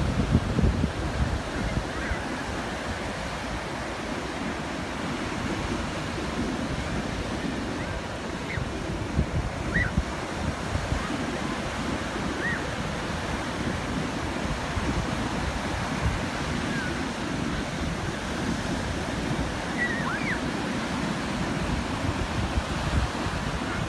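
North Sea surf breaking: a continuous rush of waves crashing and foaming in the shallows.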